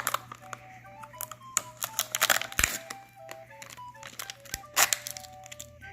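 A toy surprise-packet wrapper crinkling and tearing as it is opened, in crackly bursts about two seconds in and again near the end. A light background melody of short plinking notes runs under it.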